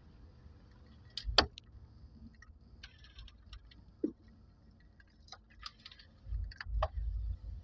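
Scattered light clicks and taps, with one sharper click about a second and a half in and low rumbling handling noise near the end.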